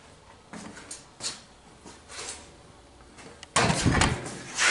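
Sawn-off steel cab roof of a Ford F-100 being shifted by hand, with a few small knocks and rustles, then a sudden loud rough scraping rattle of sheet metal about three and a half seconds in, which comes back near the end.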